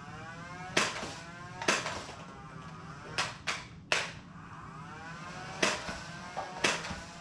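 Nerf Rival blaster firing foam balls in the middle of a timed run: about seven sharp pops at uneven gaps over a faint motor whine that rises and falls in pitch as the flywheels spin up and slow.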